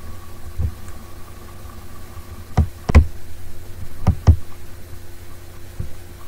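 Pneumatic brad nailer firing brad nails through plywood into the wooden frame beneath, in several sharp shots. The loudest come in two quick pairs near the middle, over a steady low hum.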